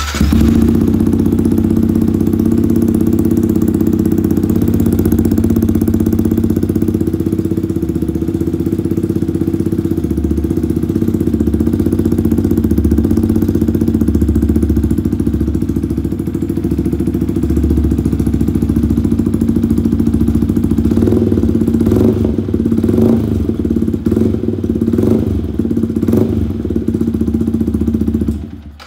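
Yamaha MT-15's 155 cc single-cylinder engine running through an aftermarket exhaust fitted with a universal dB killer, idling steadily and very loud. It is blipped about five times near the end, then switched off. Even with the dB killer fitted the exhaust note is harsh and ear-piercing.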